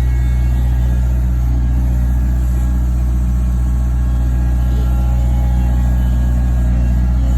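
Skid steer engine running steadily, a loud, even low drone.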